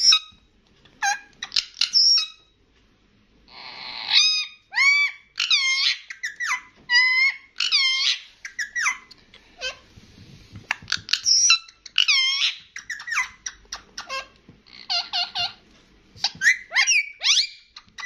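Indian ringneck parakeet squeaking and chattering: a busy run of sharp, whistled calls whose pitch rises and falls, with bursts of quick repeated chirps near the end.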